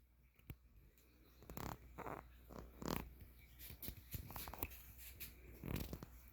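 Faint, scattered handling noises: a few brief rustles and light knocks at irregular intervals over a quiet background.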